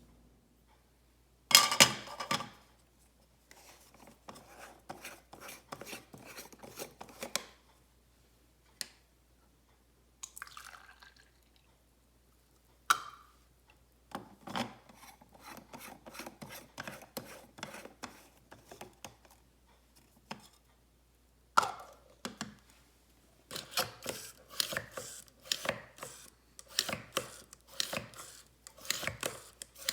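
Clicks, taps and rattles of plastic and glass parts being handled while coffee is made in a portable espresso maker, with some water dripping or pouring. The loudest is a sharp click about 1.5 s in, and a dense run of rapid clicking fills the last several seconds.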